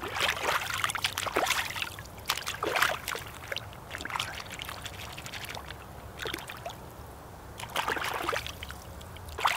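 Water splashing and trickling in short, irregular bursts, like hands working in cold water.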